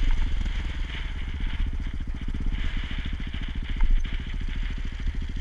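KTM 525 EXC's single-cylinder four-stroke engine running off the throttle at low revs as the bike rolls slowly, settling into an even, rapid pulse near idle.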